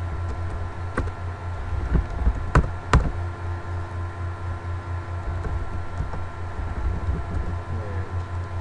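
A few sharp computer mouse clicks in the first three seconds, the loudest two about half a second apart, as a file is opened. Under them runs a steady low hum.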